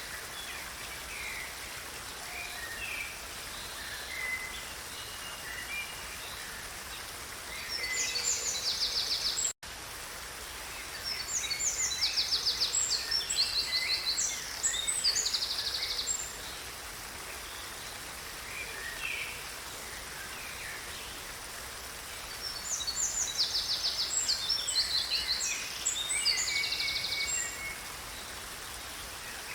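Songbirds singing over a steady rush of flowing river water. Loud bouts of rapid trilled song come about eight seconds in, again from about eleven to sixteen seconds, and from about twenty-three to twenty-seven seconds, with softer scattered calls between. The sound cuts out for an instant just before ten seconds.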